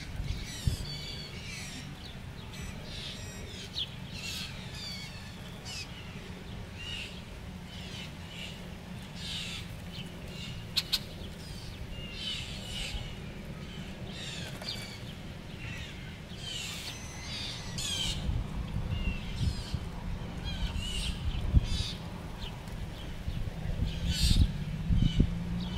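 Blue jays giving short calls again and again, with a low rumble underneath that grows louder over the last several seconds. A pair of sharp taps comes about eleven seconds in.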